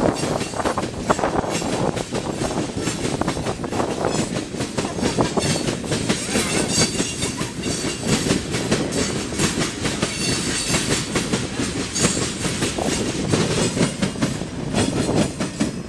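Tank cars of a freight train rolling past close by, the wheels clattering over rail joints in a rapid, irregular clickety-clack.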